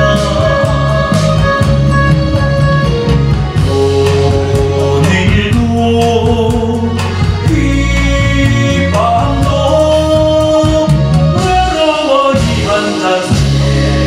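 Male singer singing a Korean song over amplified band accompaniment.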